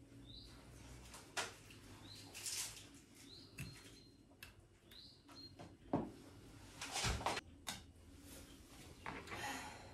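Short high chirps, each gliding up and then holding, repeated about five times over the first five seconds, with scattered knocks and clatter of things being handled, loudest about six and seven seconds in.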